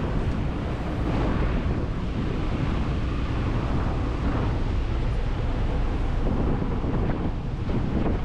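Steady, loud roar of the Rhine Falls' water close up, with wind buffeting the microphone.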